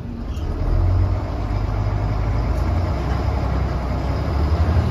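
Volvo B10M bus's underfloor straight-six diesel engine and transmission heard from inside the cabin: a steady low drone that grows louder about a second in.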